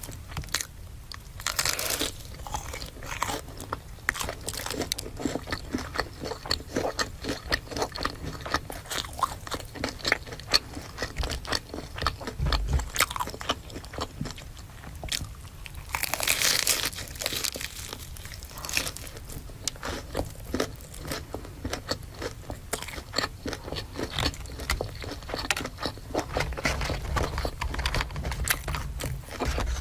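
Close-miked eating of crispy fried food: a steady run of crunchy bites and chewing, loudest at two crunching bites about 2 seconds in and about 16 seconds in.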